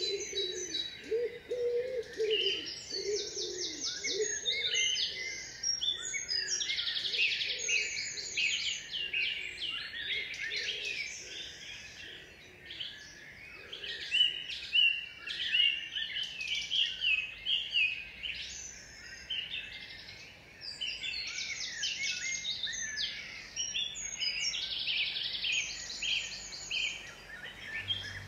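A chorus of several songbirds singing at once, with overlapping chirps and fast trills. A lower wavering call underneath fades out within the first ten seconds or so.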